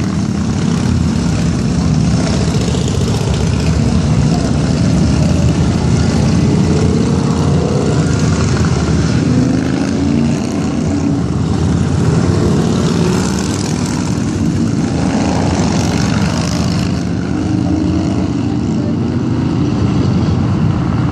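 A procession of motorcycles riding past on the road, their engines blending into continuous loud engine noise; cars are passing near the end.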